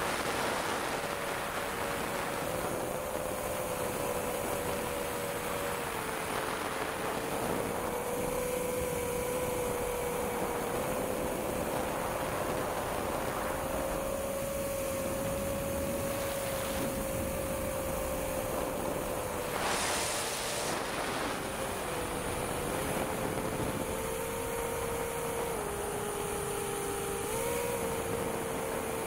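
Long-range quadcopter's motors running with wind rush over the onboard camera's microphone. The motor tone wavers and steps slightly in pitch as the throttle changes. A short burst of wind hiss comes about twenty seconds in.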